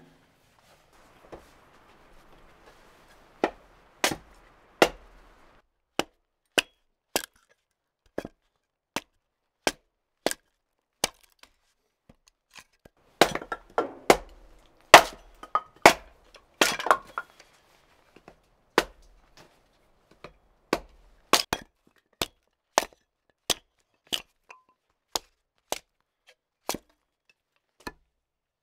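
Small hatchet splitting kindling on a wooden chopping block: a run of sharp cracks, roughly one a second, with a quicker flurry of strokes near the middle.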